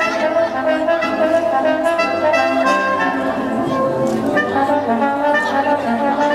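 Brass-led music playing a melody, held notes changing one to the next without a break.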